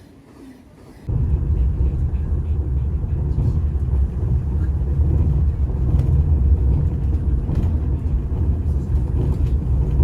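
Loud, steady low rumble that starts abruptly about a second in.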